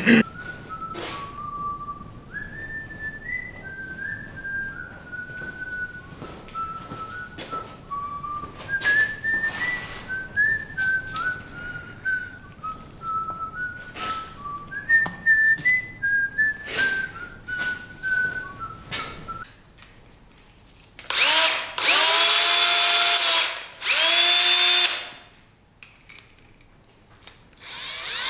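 A person whistling a tune over light clicks of metal parts being handled. About 21 seconds in, a power drill/driver runs in three short, loud bursts, driving in the compressor pump's cylinder head bolts, and starts up again near the end.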